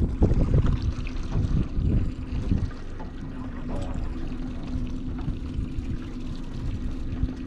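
Mercury outboard motor running at a steady idle under water slapping against a small boat's hull. The slapping is busiest in the first few seconds.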